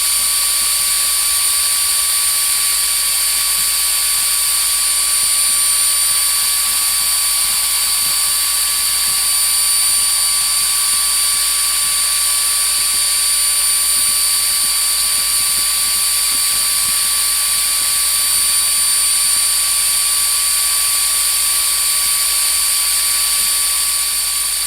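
Router motor on a homebuilt CNC machine running at high speed, a steady high-pitched whine mixed with cutting noise as a 1/16 in bit carves a wooden sign.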